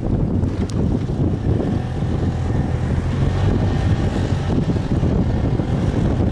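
Snowmobile engine running steadily while one snowmobile tows another on a tow strap through snow, with wind buffeting the microphone.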